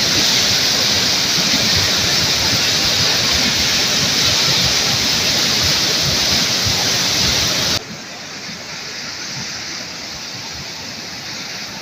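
Swat River in flood, a muddy torrent rushing through a town: a loud, steady rush of water that drops suddenly to a quieter rush about eight seconds in.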